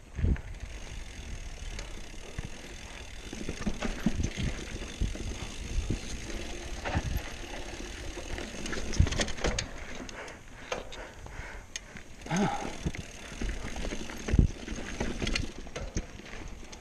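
Cross-country hardtail mountain bike ridden over rocky, loose singletrack: a steady rumble of tyres on dirt and stone, with irregular knocks and rattles from the bike as it jolts over rocks.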